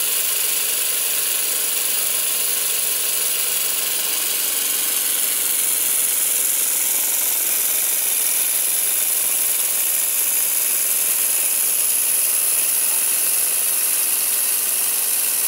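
Small brass twin-cylinder double-acting oscillating engine running on compressed air, with a loud, steady hiss of air and the engine's fast mechanical chatter.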